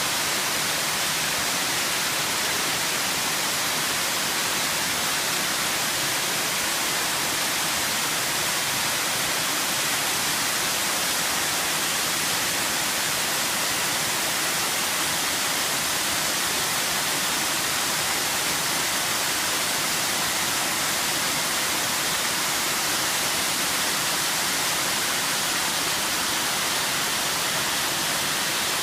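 Steady rushing of a small spring-fed waterfall: underflow water welling out of a mossy rock face and falling in many small cascades.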